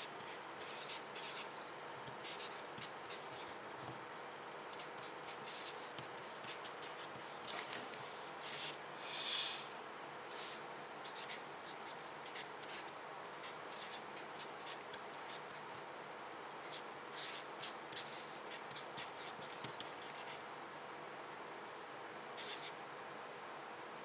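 Felt-tip marker writing on paper: quick strokes of the tip across the page in clusters, with a longer, louder stroke about nine seconds in and a short pause near the end. A faint steady hum sits underneath.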